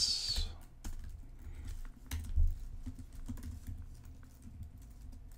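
Typing on a computer keyboard: irregular key clicks as a line of code is entered, with one dull thump a little over two seconds in.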